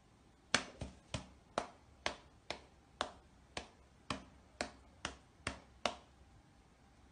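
A cat's paw slapping against a person's open palm: about a dozen quick, sharp pats at roughly two a second, stopping about a second before the end.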